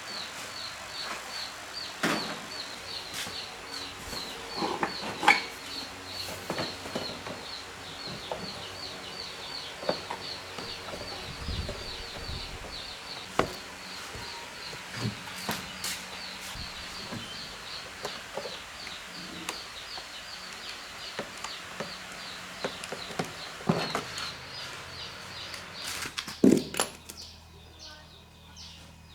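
A high, thin chirp repeating evenly about twice a second from a small animal, stopping near the end, with scattered sharp clicks and knocks throughout.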